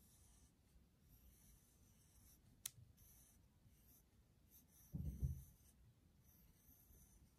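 Ticonderoga pencil writing on paper on a desk: faint, scratchy strokes. A sharp tick comes a little under three seconds in, and a short, dull thump, the loudest sound, about five seconds in.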